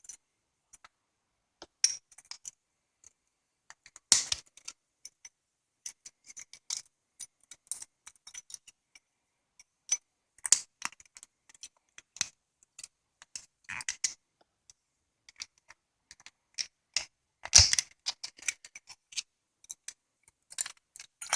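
Small steel parts of a coaster-brake bicycle hub's drive assembly clicking and clinking as they are handled and fitted by hand: scattered sharp clicks, with a few louder metallic knocks.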